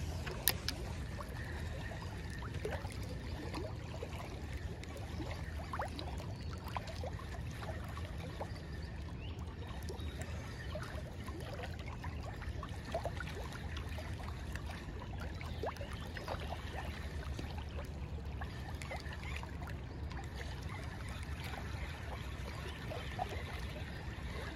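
Small waves of the river lapping and trickling against a boat's side, over a steady low rumble, with scattered light ticks and one sharp click about half a second in.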